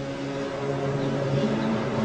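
A low, pitched drone, growing louder, whose tones hold steady and then shift in pitch: the kind of 'strange sound' from the sky that is reported as sky trumpets.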